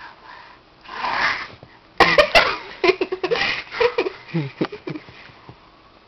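A breathy sound about a second in, then a few sharp clicks, then a run of short, choppy voice sounds that are not words and fade out near the end.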